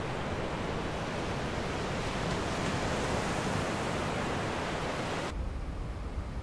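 Small waves washing onto a sandy beach, a steady even hiss that cuts off abruptly about five seconds in. After it comes a low wind rumble on the microphone.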